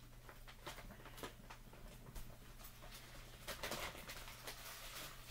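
Plastic bag of shredded mozzarella rustling and crinkling as it is handled, in short irregular crackles that are busiest about three and a half to four seconds in.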